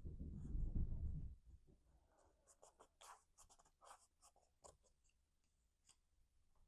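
Cardstock pieces being handled and pressed together by hand: a low rubbing of hands and paper on the work surface in the first second or so, then a run of short, crisp paper crackles and rustles.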